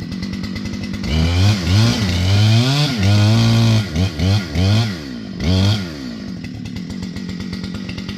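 Two-stroke chainsaw idling, then revved hard several times, its pitch rising and falling, with a few short throttle blips before it drops back to idle.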